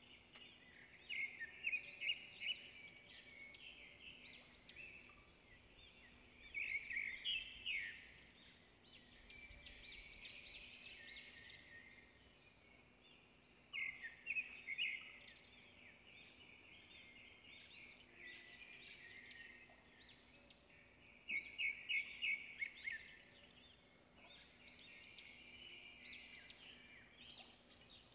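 Small birds chirping and trilling in bursts every few seconds, over a faint steady hum.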